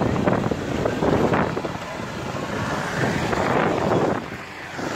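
Off-road 4x4 engine running hard as the truck ploughs through deep loose sand, with wind buffeting the microphone.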